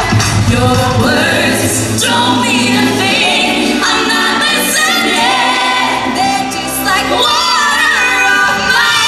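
Live band music with several voices singing together in held notes. The low bass part drops away about three seconds in.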